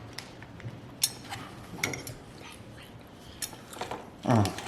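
Scattered light clicks and taps of a utensil against food containers and a plate as food is dished up, with a short falling vocal sound near the end.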